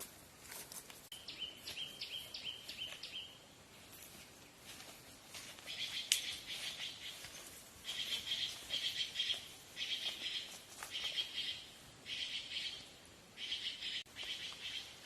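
A bird chirping. A quick run of chirps comes about a second in, then short chirping phrases repeat about once a second from roughly halfway through.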